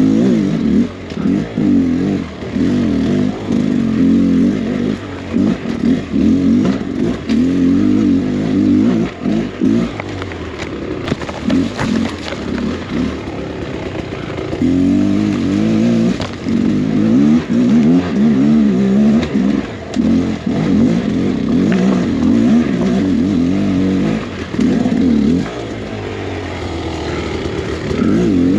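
Beta X Trainer 300 single-cylinder two-stroke dirt bike engine under changing throttle, its pitch rising and falling again and again as the rider picks through a trail, easing off twice. A few short knocks are heard along the way.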